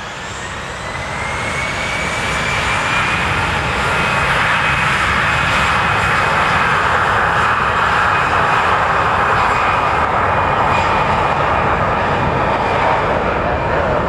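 Jet airliner's engines running loud with a high whine, building over the first few seconds, then holding steady.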